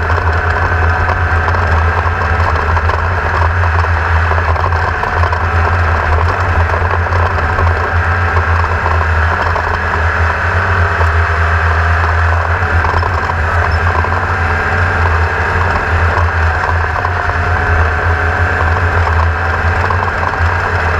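Small boat's motor running at a steady speed, a constant low drone with no change in pitch.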